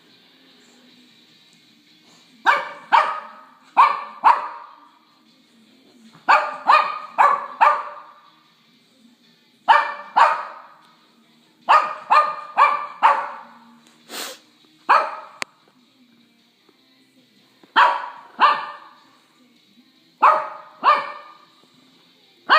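Shih Tzu puppy barking in short, high-pitched barks, in clusters of one to four with pauses of a second or two between them. These are a young puppy's first barks, made during play.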